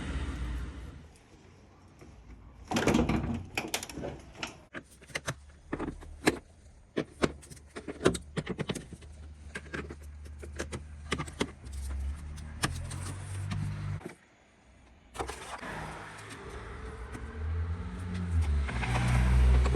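Irregular clicks and knocks, many in quick succession through the first half, over a low steady hum.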